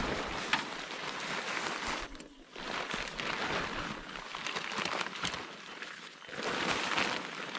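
Fabric of a Fitzroy backpacking tent rustling and crinkling irregularly as someone moves inside it and handles the tent body, with a brief lull a little after two seconds.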